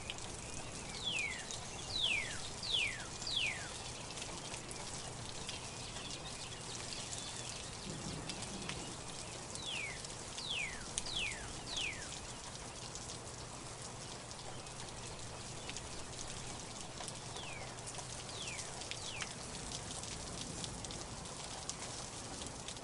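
Steady rain falling in a forest, with many individual drops ticking. A bird sings a short phrase of three or four falling whistled notes, three times: near the start, around the middle and later on.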